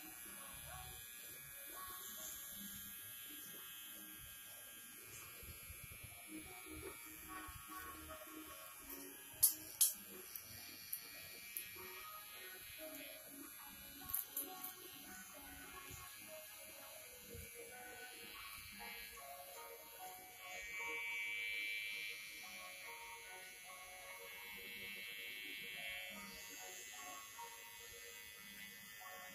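Electric hair clippers buzzing as they cut short hair at the back of the neck, with a few sharp clicks about ten seconds in and again near fourteen seconds, and a louder stretch a little past twenty seconds.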